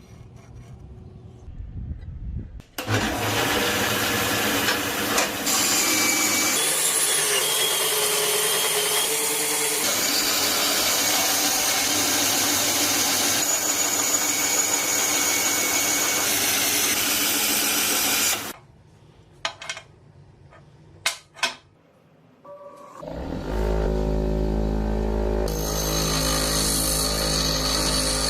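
Power tool running on metal in a long loud stretch that stops about two-thirds of the way through. A few sharp clicks follow in the pause, then the tool starts up again with a steady low hum near the end.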